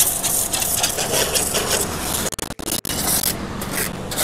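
Pressure washer spraying a jet of water onto a car's bodywork: a steady hiss of spray, with the sound dropping out briefly twice a little past halfway.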